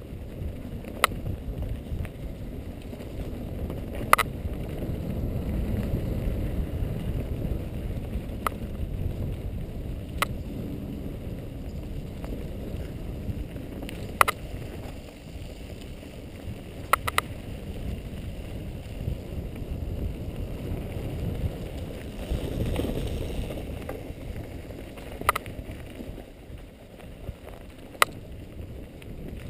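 Mountain bike ride down a dirt forest trail heard through a helmet camera: a steady low rumble of wind and tyres on the microphone, with about eight sharp clacks from the bike jolting over bumps.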